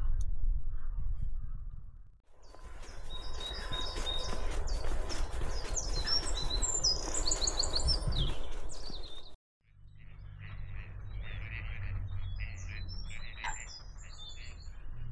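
Small songbirds chirping and trilling in quick runs of short high notes over a low rumble, cutting out abruptly twice.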